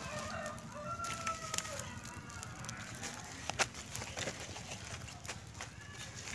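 A rooster crows once, a drawn-out call lasting the first two seconds or so. Sharp crackles and snaps of dry leaves and twigs come through it, the loudest about one and a half and three and a half seconds in.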